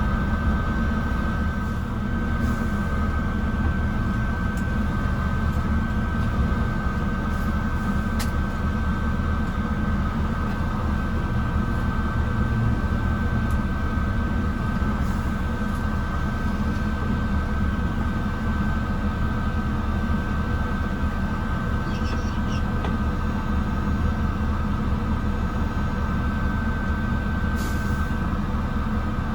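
Inside a Mercedes-Benz O307 city bus on the move: a steady low engine and road rumble, with a constant high-pitched whine and a few light clicks and rattles.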